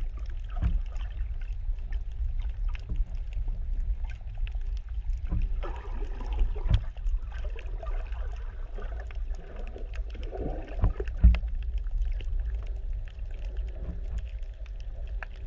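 Muffled underwater sound from a GoPro sealed in a waterproof case: a steady low rumble of water moving past the housing, with a faint crackle and dull knocks now and then, the loudest about eleven seconds in.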